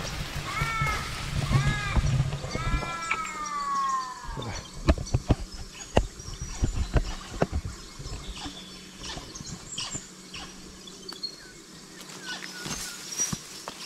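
A bird calls twice in short arched notes, then gives a long drawn-out call that falls away. After that, dry leaves, twigs and stems crackle and snap underfoot as someone pushes through dense scrub.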